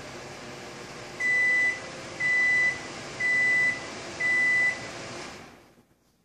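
An electronic appliance beeping four times, about once a second, each beep a short steady high tone, over a steady running hum that dies away near the end.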